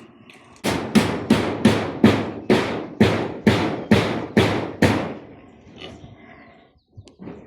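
A steady run of about a dozen sharp blows or thuds, roughly three a second, each fading quickly, stopping about five seconds in; a few faint taps follow.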